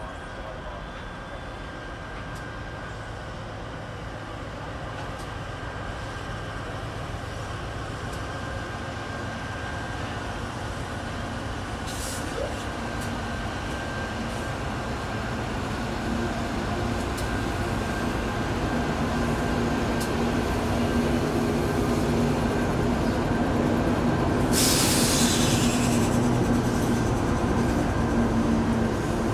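A freight train hauled by three diesel locomotives with coal hopper wagons approaches and passes, its engines' low drone building steadily louder. Near the end the passing wagons bring a sudden burst of hiss for a couple of seconds.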